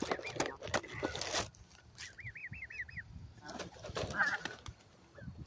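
Canada geese on grass, with scuffling and clicks for the first second or so, then a run of about five quick high chirps about two seconds in.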